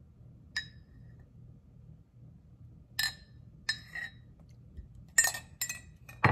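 A spoon clinking against a dish as water is mixed into a powdered brownie mix: a handful of sharp, ringing clinks at uneven intervals, the loudest at the very end.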